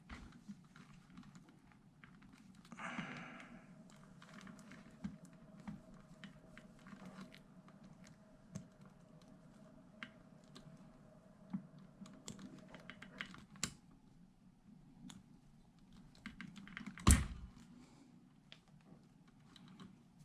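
Wire strippers and wire being handled at a workbench: scattered light clicks and snips as insulation is stripped from wire ends, with one louder knock late on.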